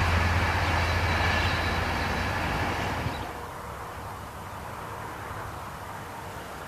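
Diesel train's engine rumbling low and fading as it moves away, cut off about three seconds in, after which only a quieter open-air background remains.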